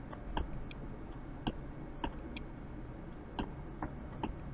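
Computer mouse buttons clicking, about nine short, faint clicks at irregular spacing while objects are selected and dragged, over a low steady room hum.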